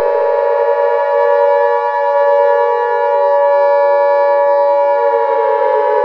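Civil defense siren wailing, a loud steady multi-tone wail that slowly sinks in pitch over the last few seconds.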